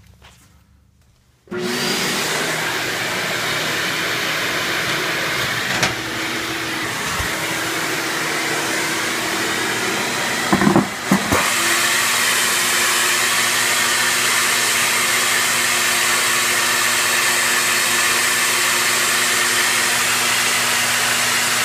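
A shop vac powering a homemade vacuum former switches on about a second and a half in and runs steadily, drawing suction under the forming platen. About eleven seconds in there is a brief knock and rattle as the frame of heated polystyrene sheet is brought down onto the former, and the vac keeps running while the plastic is pulled down around the pistol.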